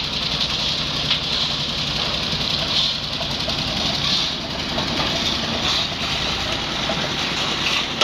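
Engine-driven concrete mixer running steadily at a construction site's lift tower, its engine and turning drum making a constant mechanical din.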